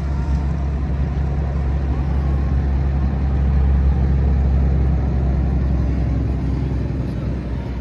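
A nearby engine running with a steady low rumble, swelling a little around the middle and easing off toward the end.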